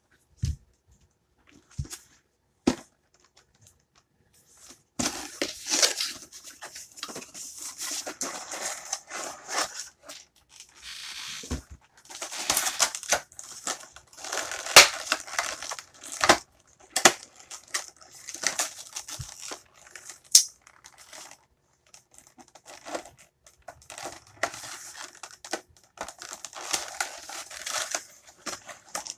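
Packaging of a boxed collectible figure being opened by hand: a few sharp clicks and knocks, then, from about five seconds in, plastic and paper crinkling and tearing in irregular spells.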